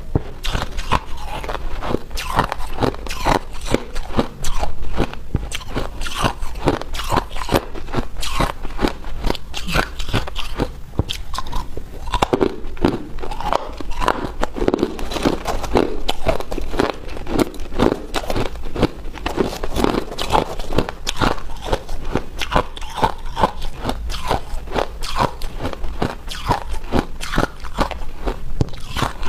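Hard ice being bitten and chewed in the mouth: a continuous run of sharp, crackly crunches, several a second.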